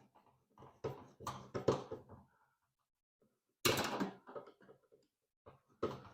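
Knocks, clunks and rattles of diesel-heater parts being handled and fitted together, with a louder clatter lasting about half a second a little past halfway.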